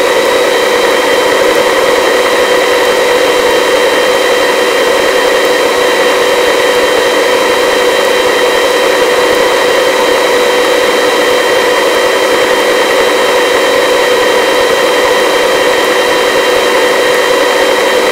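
Turbine helicopter in a low hover with engine and rotor at operating RPM: a steady, unchanging whine of several tones over a loud rush of noise, heard from the cabin through the open door.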